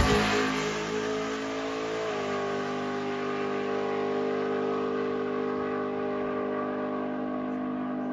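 Chevrolet ZZ632 big-block V8 in an OBS pickup at full throttle on a drag-strip pass, fading as the truck pulls away down the track. Its note holds steady, with a small step up in pitch about two seconds in.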